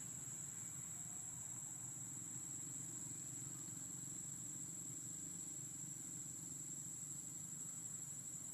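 Steady, faint, high-pitched drone of insects in the trees, over a low, even rumble in the background.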